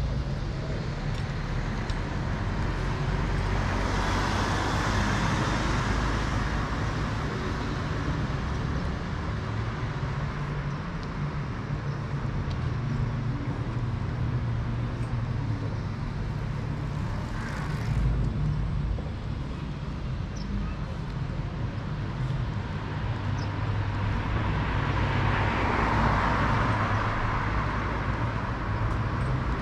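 Road traffic: a steady low engine rumble with tyre and road noise that swells twice as vehicles pass, once a few seconds in and again near the end.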